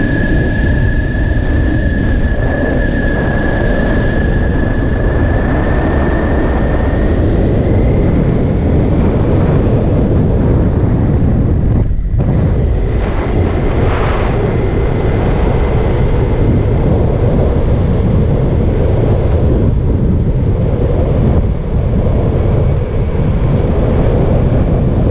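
Wind rushing over the microphone with a Kawasaki Ninja 400's parallel-twin engine running at road speed. A thin whine holds steady and rises slightly in pitch about seven seconds in, and the noise drops out for an instant near the middle.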